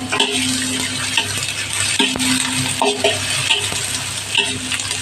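Onion and garlic sizzling in hot oil in a frying pan, with a spatula scraping and clinking against the pan about once a second as they are stirred.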